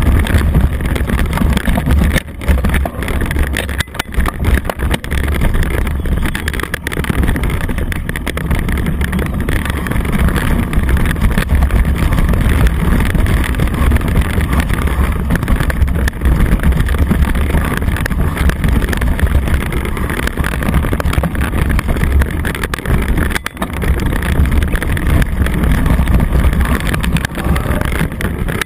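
Wind buffeting the microphone of a camera on a moving mountain bike, a loud steady rumble, mixed with the knobby tyre rolling over a leaf-covered dirt trail. It drops briefly a few times.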